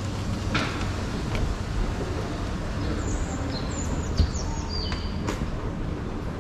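Outdoor city street ambience: a steady low rumble of traffic, with a few sharp clicks and brief high-pitched squeaks in the middle.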